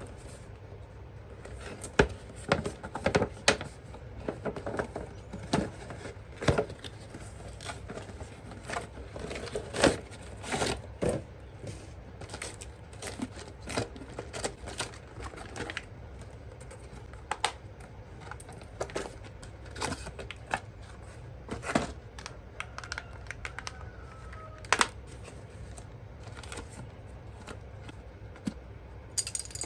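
Irregular clicks, taps and light rustling from hands handling plastic toy parts and packaging, with a few louder knocks scattered throughout.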